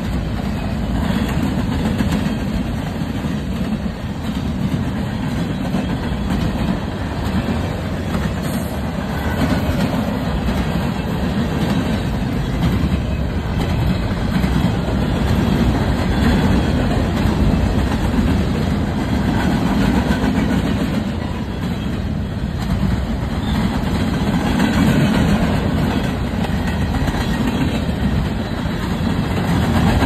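Freight cars of a passing mixed freight train (boxcars, covered hoppers, tank cars) rolling by close to the track: a steady low rumble of steel wheels on the rails, with the clatter of wheelsets over rail joints.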